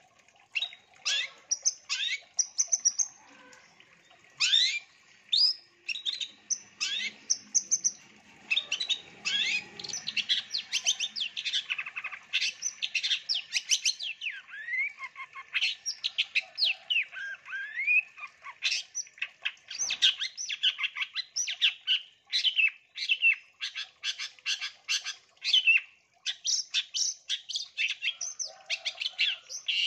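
Long-tailed shrike (cendet) singing a rapid, varied stream of sharp chirps, trills and whistled sweeps, delivered in quick bursts with short gaps.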